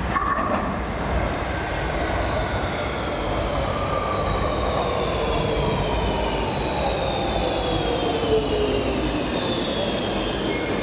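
Electric rail vehicle running on the rails, its electric drive whining in several tones that fall slowly in pitch as it slows, over a steady rumble of wheels and rails.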